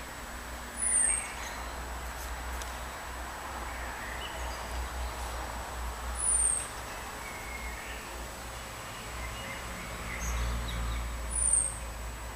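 A bird repeating a short, thin, very high whistle that slides downward, three times about five seconds apart, with fainter bird chirps between.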